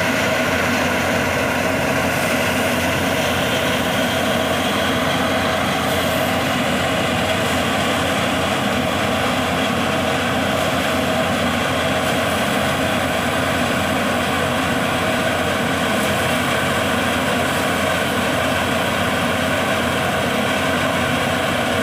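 Tractor engine and the thresher it drives running steadily under load as crop is fed in: a continuous, even machine drone.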